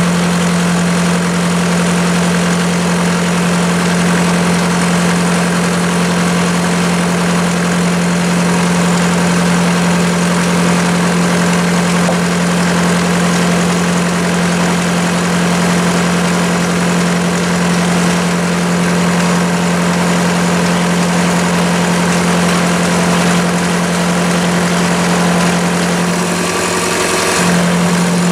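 Chinese mini lathe running at a steady speed, its motor and headstock gears giving a steady hum with one strong low note. The note shifts slightly near the end.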